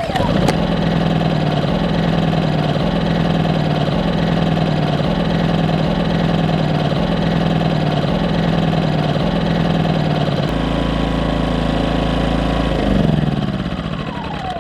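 P2200i portable generator's engine running steadily. About ten seconds in its note changes, and near the end its pitch falls as it slows down.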